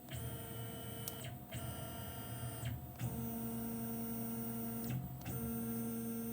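Axis stepper motors of a Tormach 1100M CNC mill whining steadily as the machine jogs, in four runs of one to two seconds each with short pauses between. The pitch changes from run to run.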